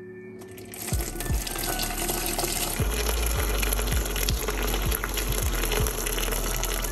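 A stream of water pouring into a stainless steel pot over whole bell peppers, filling it. The pouring starts about a second in and runs steadily.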